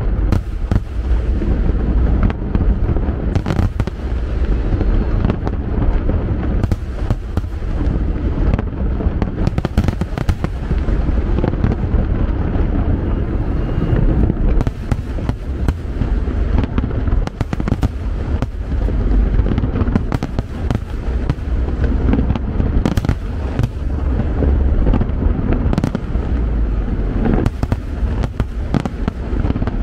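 Fireworks display: a dense, continuous barrage of aerial shell bursts, many overlapping bangs and booms over a steady low rumble.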